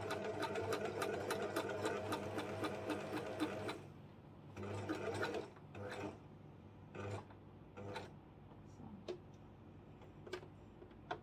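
Singer electric sewing machine stitching at a steady run for a few seconds, then stopping and giving several short bursts of stitches, followed by a few light clicks.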